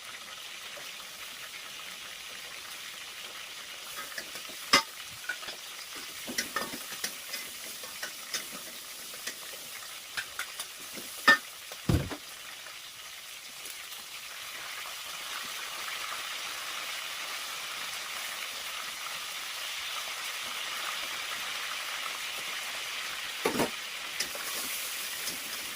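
Food sizzling in hot oil in a pan, with a few sharp knocks of a utensil against the pan. The sizzle grows louder about halfway through.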